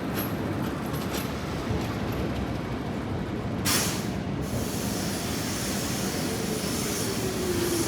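Milan city tram on the rails, a steady rumble, with a short burst of air hiss about three and a half seconds in and a low tone falling in pitch near the end.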